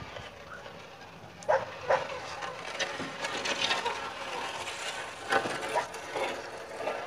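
Heavy precast concrete joist dragged by hand, scraping along the ground and over the other joists with several knocks: sharp ones about a second and a half in, again near two seconds, and a little past five seconds.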